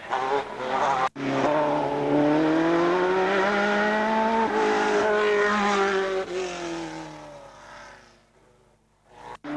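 A Formula 3 racing car's four-cylinder engine at high revs, its note climbing and then falling away and fading as the car accelerates off up the hill. There is a brief break in the sound about a second in.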